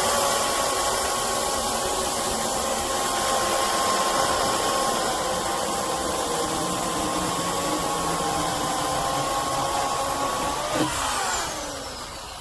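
Craftsman 16-inch 12-amp corded electric chainsaw's motor running with a steady whine. About 11 seconds in it is switched off, and its pitch falls quickly as it winds down.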